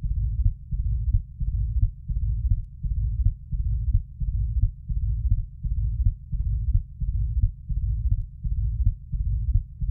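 Recorded heart sounds of mitral stenosis: a low-pitched rumbling diastolic murmur after the second heart sound, like a drum roll, repeating with each heartbeat.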